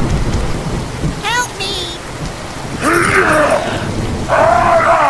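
Steady rain with a low thunder rumble, and animal cries over it: a few short rising chirps about a second and a half in, then longer wavering calls near the middle and again near the end.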